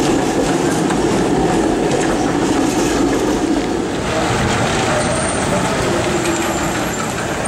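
Electric trams rolling past on street track, a steady rumble of steel wheels on rails, wet from rain.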